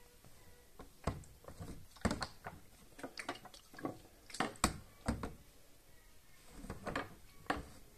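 Irregular plastic knocks and clicks as the dirty-water tank of a Bissell SpotClean Pro is handled and tilted, with the murky extracted water sloshing inside it.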